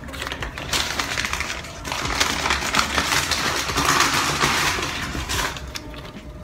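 Rummaging through a bag: a dense rustling and crinkling with many small clicks and knocks, dying down shortly before the end.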